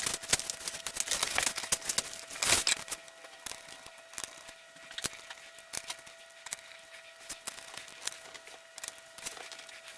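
Plastic bottom cover of an Acer Aspire 5 laptop being handled and pressed back into place: a quick run of clicks, snaps and scrapes for the first few seconds, then scattered lighter clicks.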